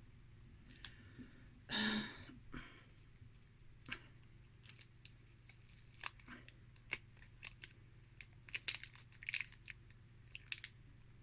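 Quiet, scattered crinkles, small clicks and tearing sounds of packaging being picked at and peeled off a cosmetic cream stick by hand, with a slightly louder rustle about two seconds in and a busier run of crinkling near the end.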